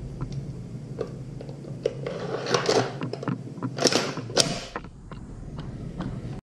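WE Glock 34 G-Force airsoft gas blowback pistol being reassembled by hand: the slide and frame clack, rattle and slide together, with a string of sharp clicks, the loudest two about four seconds in.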